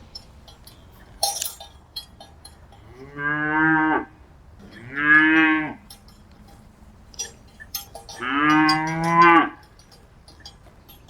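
Cattle mooing three times, each a drawn-out low call, the last the longest. Light clicks and clinks sound in between.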